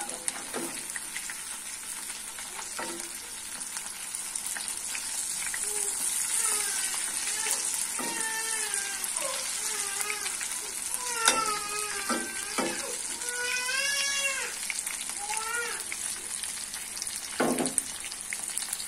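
Food frying in hot oil in a karahi, a steady high sizzle, with a metal spatula now and then knocking and scraping against the pan.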